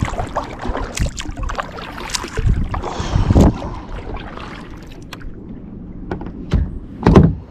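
Knocks, bumps and rustling of gear being handled in a kayak, with several heavier thumps against the hull, the loudest near the end.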